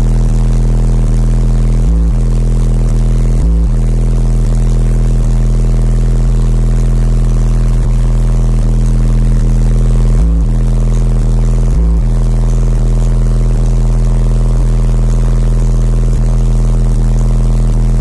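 Sundown SA v2 car subwoofers playing a loud, sustained deep bass tone through the truck's open window, holding one steady pitch with a buzz of overtones above it. The tone dips briefly four times.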